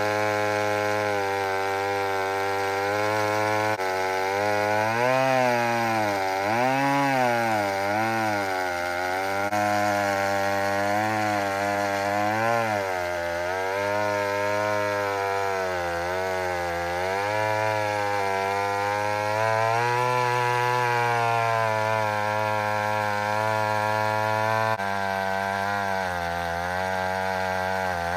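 1959 McCulloch Mac 150 80cc two-stroke chainsaw running at full throttle in a cut through a large log. The engine pitch dips and recovers again and again as it bogs under load; the cut is a pretty slow one.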